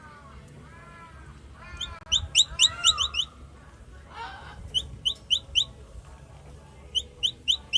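Baby capybara calling in quick, high-pitched chirps, in three runs of four to seven chirps each. Lower wavering calls sound underneath in the first three seconds.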